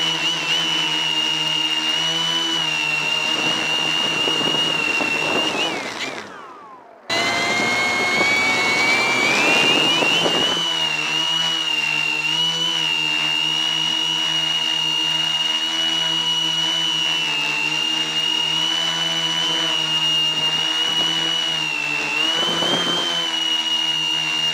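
Quadcopter's electric motors and propellers whining at a steady high pitch, heard close up from the craft's own camera. About six seconds in the whine falls in pitch, fades and cuts out for under a second, then the motors spin back up with a rising whine and hold steady again.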